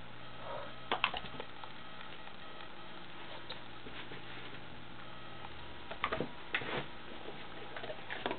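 A golden retriever shifting and reaching for treats: short clicks and taps come in a cluster about a second in, again around six to seven seconds in and once more near the end, over a steady low electrical hum.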